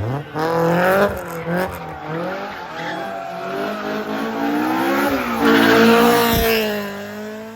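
Rally car engine at full throttle, revs climbing and dropping several times as it shifts and lifts, with tyre noise swelling to the loudest point about six seconds in.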